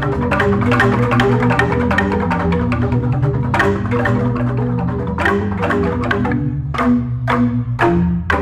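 Jegog, a Balinese gamelan of large tuned bamboo tubes struck with mallets, playing a piece. Dense interlocking notes ring over deep, sustained bass tones. From about five seconds in they thin to strong, spaced strokes at about two a second.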